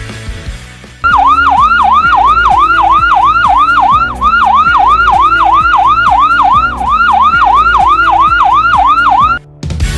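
Electronic ambulance siren on a fast yelp tone, its pitch dropping sharply and sweeping back up about three times a second. It starts abruptly about a second in and cuts off shortly before the end.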